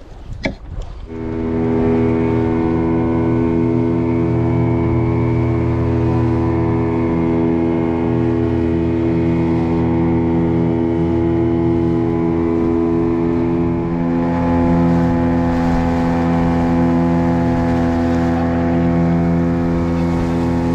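Small open boat's motor running at a steady cruising speed, with an unchanging drone and water rushing past the hull. It comes in about a second in, after some wind noise and a few clicks.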